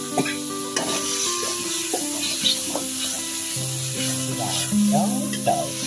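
Metal spatula stirring and scraping oyster mushrooms and chili as they sizzle in oil in a wok, with irregular clacks of the spatula against the pan.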